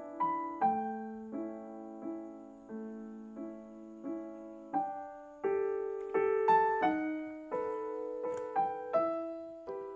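Background music: a slow piano melody of single struck notes, each fading away, about one or two notes a second.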